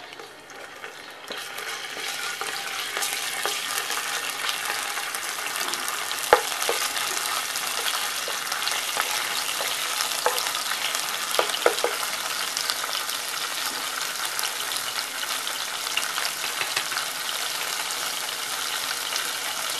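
Ginger, garlic, chilli, coriander, mint and curry-leaf paste sizzling and crackling in hot oil with bay leaves in a nonstick pan. The sizzle builds up about a second in and then holds steady. A few sharp knocks of the spatula against the pan come as it is stirred.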